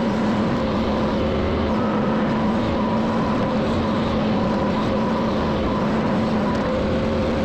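Diesel engine of a heavy digging machine running steadily, a constant pitched hum.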